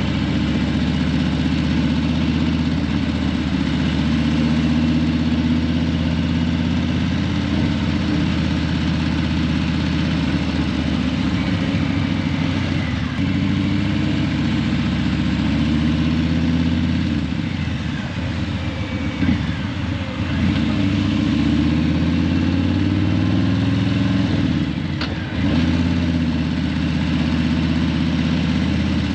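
Harley-Davidson Breakout 117's Milwaukee-Eight 117 V-twin running through Vance & Hines Eliminator 300 slip-on mufflers under way. Its pitch is steady at first, then rises and falls several times through the middle and later part as the throttle is opened and closed, with a few brief drops in loudness.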